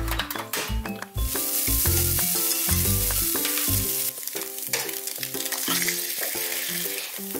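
Julienned carrots and other gimbap fillings sizzling in oil in a frying pan as they are stirred with a spatula. The sizzle swells about a second in, over light background music.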